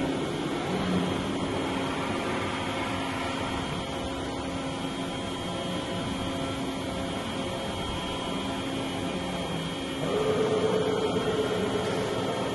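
HNK VTC-20/25 CNC vertical lathe running: a steady machine hum with several held tones. About ten seconds in it grows louder as a higher whine joins.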